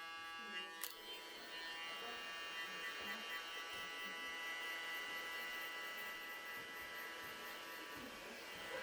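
Electric hair clippers buzzing steadily, with a sharp click a little under a second in, after which the buzz turns rougher and noisier.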